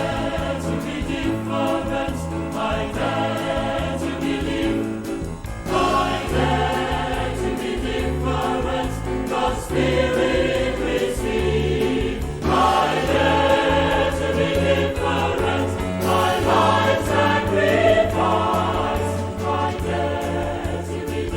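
Background music: a choir singing a Christian worship song over an instrumental backing with sustained bass notes.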